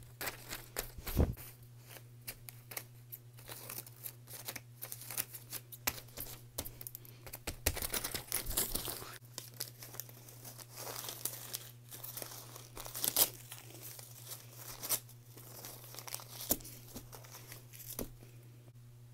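Paper drawings being torn up and crumpled by hand: an irregular run of sharp rips and crinkling rustles that stops about a second before the end, over a faint steady low hum.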